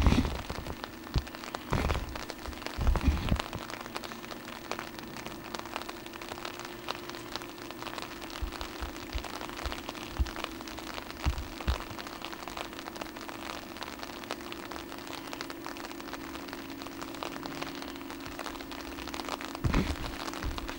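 Steady rain: a dense, even patter of drops, over a low steady hum. A few dull knocks come in the first three seconds and again near the end.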